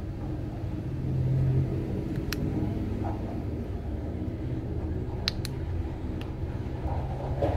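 Steady low background rumble, with a few sharp light clicks scattered through it, from small tools working on a phone's disassembled parts.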